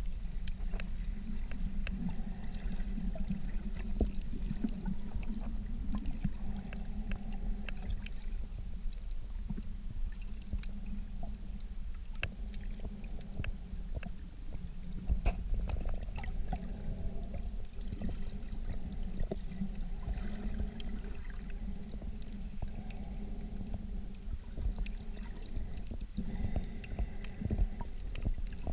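Underwater sound picked up by a camera held below the surface in shallow reef water: a steady muffled low rumble with many scattered sharp clicks and crackles.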